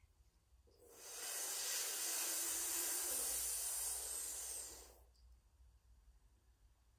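A long breath drawn in through a rolled tongue in Shitali cooling breath: a steady hiss of air lasting about four seconds, starting just under a second in.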